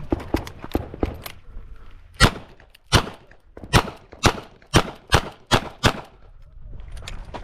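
Smith & Wesson 929 revolver firing 38 Short Colt rounds: eight shots in quick succession, about two a second, emptying its eight-round cylinder. They are preceded by a run of fainter sharp cracks in the first second or so.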